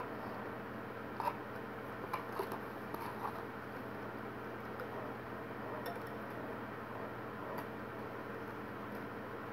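Wire whisk stirring pudding mixture in a glass mixing bowl, the wires giving a few light clinks against the glass, over a steady low hum.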